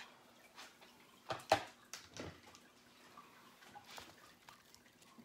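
A few soft knocks and clatters of utensils against dishes and food containers, the loudest pair about a second and a half in.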